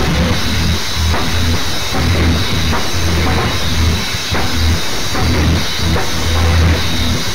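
Instrumental rock backing track: a drum kit beating steadily over held low bass notes.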